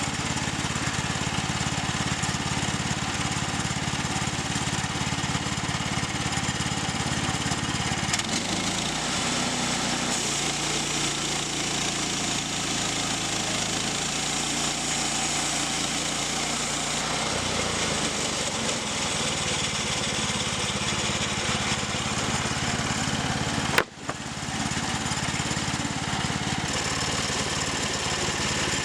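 Small gasoline engine of a log-milling saw running steadily while milling planks. Its note shifts for about ten seconds in the middle, then settles back. A single sharp crack with a brief drop in sound comes about three-quarters of the way through.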